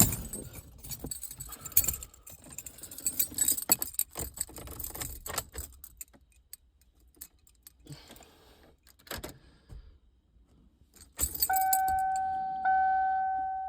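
A bunch of car keys jangling and clicking as the ignition key is worked, then quieter with a few clicks. Near the end the car's dashboard warning chime starts, dinging steadily about once a second with the ignition on and the engine off.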